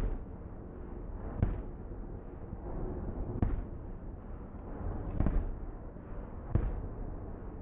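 Aerial fireworks shells bursting: five sharp booms, one about every one and a half to two seconds, with steady low noise between them.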